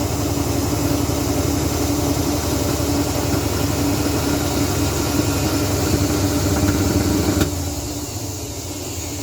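Washing machine running loudly with a steady hum and low rumble, then cutting out abruptly with a click about seven and a half seconds in as the power goes off. The machine has burnt out.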